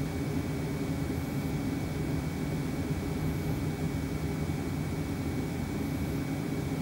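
Steady rush of air and low hum from the VW Sharan's cabin heating blower, running with the Eberspächer D3WZ diesel coolant heater in parking-heater mode, with a thin steady whine above it.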